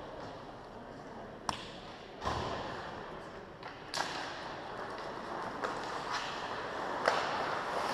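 Ice hockey play in an echoing arena: a steady wash of skates and play noise, broken by three sharp clacks of stick and puck, about a second and a half in, at four seconds and near the end.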